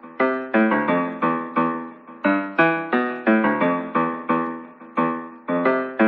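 Background music: a piano or electric-piano melody of struck notes, each fading away, several notes a second.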